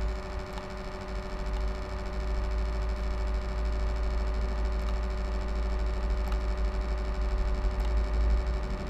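HP Envy m6 laptop cooling fan running with a steady hum and whir made of several fixed tones over a low rumble: the strange noise the owner cannot explain.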